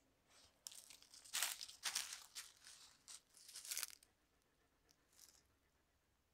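Footsteps crunching through dry eucalyptus leaves, bark and loose stones on a slope, a quick run of uneven crunches that stops about four seconds in, with one faint crunch a second later.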